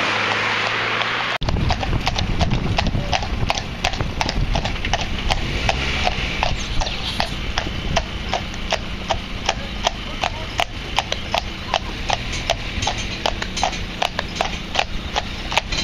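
A heavy cob's hooves clip-clopping on tarmac at a steady walk, about three sharp strikes a second, as it pulls a horse-drawn cart, over the low rumble of the cart rolling. It opens with a steady hum that cuts off abruptly about a second and a half in.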